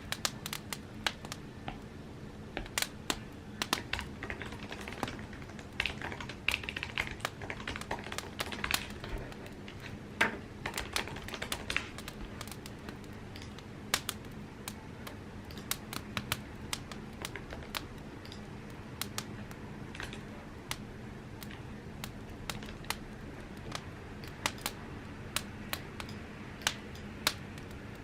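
Typing on an Apple computer keyboard: quick runs of keystrokes for the first dozen seconds, then slower, scattered key presses, over a low steady hum.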